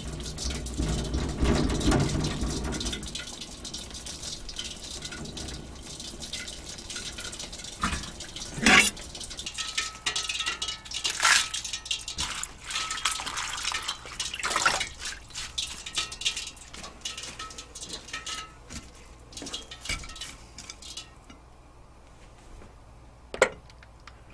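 Lettuce leaves being washed by hand in a bowl of water at a stainless steel sink: splashing and dripping, with several sharp knocks against the bowl and sink. Before that, a piece of fried chicken is pulled apart by hand, and the sounds die down near the end.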